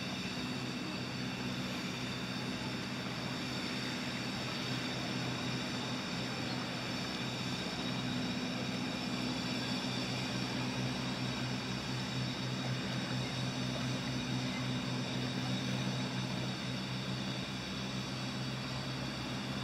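A steady mechanical drone: a low hum with a thin higher whine above it, holding an even level without change.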